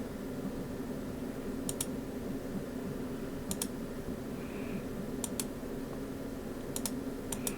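Sparse clicks at a computer, several in quick pairs, over a steady low hum.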